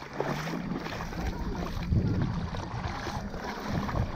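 Shallow bay water sloshing and splashing around a wader and a fish gig held down in the water, an irregular watery noise with no steady rhythm.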